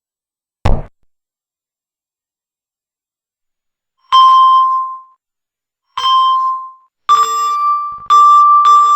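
Collision sound effects played by a Java 3D program: a single knock, then after a few seconds of silence an electronic chime tone, twice, about a second each. Near the end the chime repeats quickly, roughly twice a second, each new one cutting into the last.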